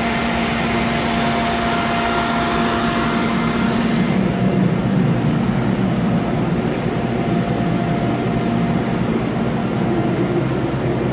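1998 Charmilles Robofil 290 wire EDM machine running: a steady mechanical hum and whir with a thin steady whine. A high hiss drops away about four seconds in, and the whine stops near the end.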